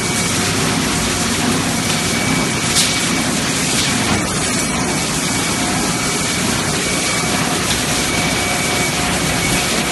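Extrusion blow molding machine and its output conveyor running: a loud, steady, dense machine noise with a faint high whine, and a couple of brief sharper noises about three and four seconds in.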